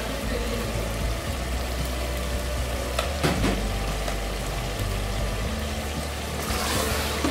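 Mutton curry sizzling and bubbling in an aluminium pressure-cooker pot on the stove, with a wooden spoon in the pot. There is a brief scrape about three seconds in, and the sizzle gets louder near the end.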